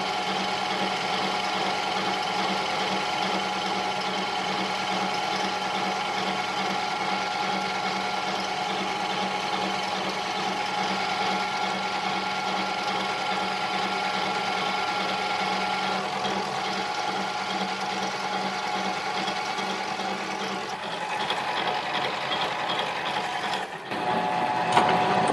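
Harbor Freight mini lathe running while turning aluminium stock, its motor and gearing giving a steady whine and hum. The sound shifts about three-quarters of the way through and dips briefly near the end.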